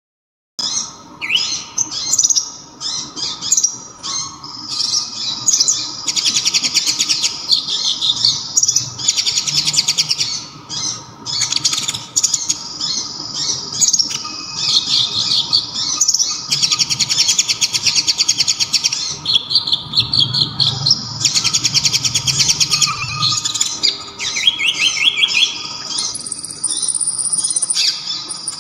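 Konin (kolibri ninja) sunbird singing a high, rapid song of fast trills and chirps in long runs broken by brief pauses, over a faint steady tone.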